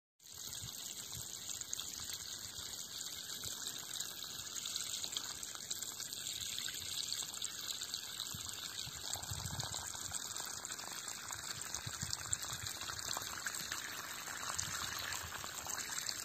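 Water pouring steadily out of a hose onto tilled soil, watering walnut trees; an even, unbroken rush with no pauses.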